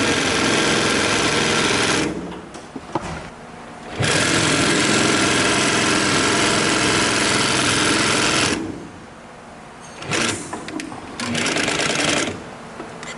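Highlead GC20698-2 double-needle walking-foot industrial sewing machine, driven by a servo motor, sewing at speed in three runs: about two seconds at the start, a longer run of about four seconds from four seconds in, and a short run near the end, with pauses between.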